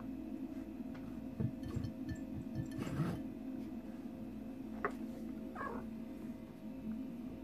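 A cat eating from a stainless steel bowl, with a few knocks against the bowl in the first half and a short meow-like call about five and a half seconds in, over steady soft background music.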